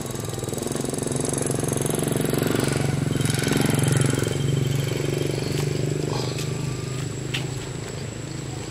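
An engine running with a steady low hum, growing louder to about halfway through and then fading.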